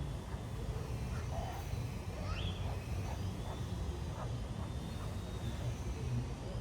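Outdoor ambience: a steady low rumble with small birds chirping and whistling here and there over it.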